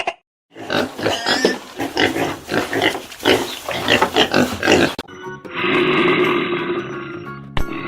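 Pig grunting in a rapid, uneven series of short grunts. About five seconds in it cuts off sharply, giving way to a steadier, duller sound with held tones.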